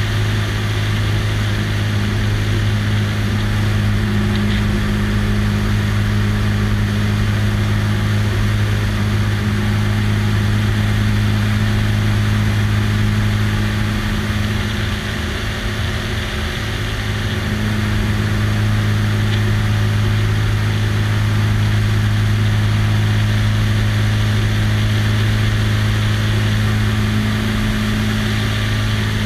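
Light biplane's piston engine and propeller droning steadily in cruise, heard with the rush of the slipstream over the wing-mounted camera. The drone eases slightly about halfway through and comes back up.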